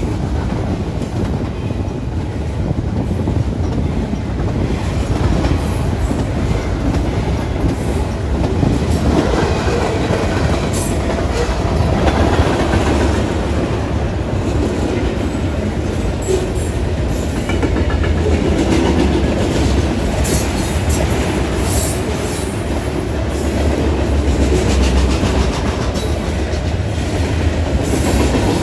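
Freight cars rolling past at close range: double-stack container cars, then tank cars, boxcars and covered hoppers, their steel wheels making a steady rumble and clatter on the rails.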